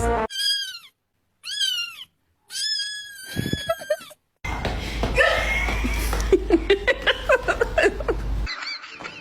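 A cat meowing three times, each meow high-pitched, drawn out and falling in pitch, with short pauses between. About four seconds in, a busier stretch follows: a steady low hum with many quick chirps and clicks.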